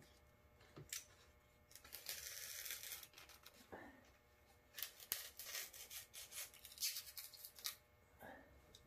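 Faint hand handling of snowmobile wiring and plastic trim: light rubbing and small clicks, with a short rasping stretch about two seconds in and a run of clicks from about five seconds in.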